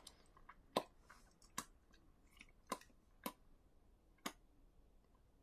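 Near silence with five faint, unevenly spaced clicks.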